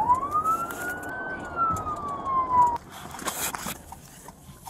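Police car siren heard from inside the patrol car: one slow wail that rises, then falls, and cuts off suddenly about three seconds in, leaving car noise and a few clicks.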